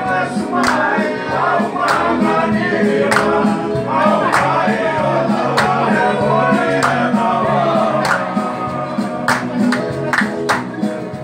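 Fijian string band: a group of men singing together to strummed acoustic guitars, the strums falling in a steady rhythm under the sustained voices.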